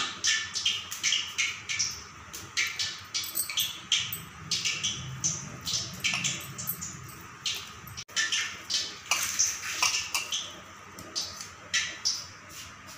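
A hand kneading a wet, crumbly egg vada mixture (grated boiled egg, onion, gram flour and rice flour bound with beaten egg) in a steel bowl: quick, irregular squelching, several squishes a second.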